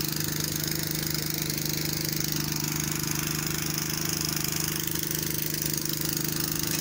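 Diesel engine of an ACE F15 pick-and-carry mobile crane running steadily with a constant hum while the crane holds and lowers a concrete chamber on its hook.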